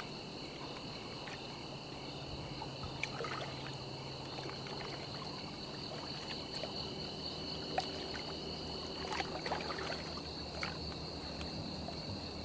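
Quiet background ambience: a steady high chirring of insects over a faint low hum, with a few soft clicks; the lower of the two chirring tones drops out about nine seconds in.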